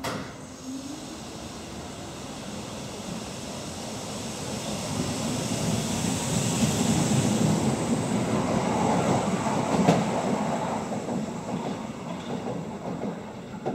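Berlin U-Bahn F76-type train pulling away from the platform. A short whine rises in pitch about a second in, then the rumble of the train builds as it gathers speed, peaking around seven to ten seconds with a sharp clack, and then fades.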